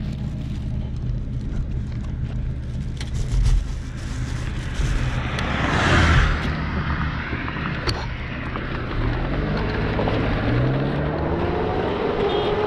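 A car passes close by about six seconds in, its road noise swelling and fading, over the steady low hum of an idling engine. From about nine seconds an engine revs up with a steadily rising pitch as a vehicle pulls away.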